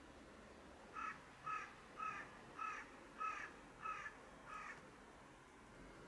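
A crow cawing seven times in a steady series, about one caw every 0.6 seconds, the last one fainter.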